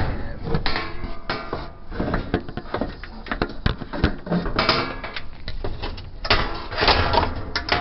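Irregular clacks, knocks and scraping of the plastic and sheet-metal panels of a top-load washer being handled, loudest at the start and again near the end.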